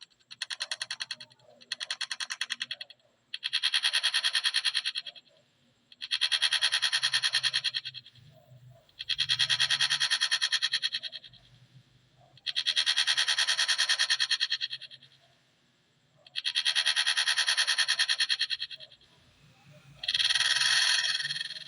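Clock ticking sound effect sped up so far that the ticks run together into a rattling buzz. It comes in repeated bursts of one to two seconds, separated by short pauses.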